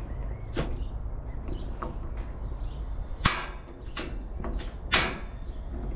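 A handful of sharp knocks and clacks, the loudest about three seconds in, over a steady low rumble.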